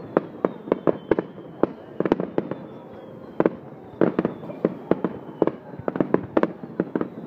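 Aerial firework shells bursting: a stream of sharp bangs at irregular intervals, some coming in quick clusters.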